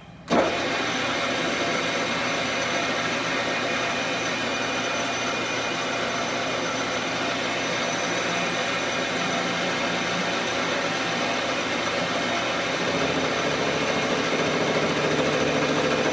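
Benchtop metal lathe switched on about half a second in, its motor and headstock gearing then running with a steady whine as it turns a shotgun barrel. The sound grows slightly louder near the end.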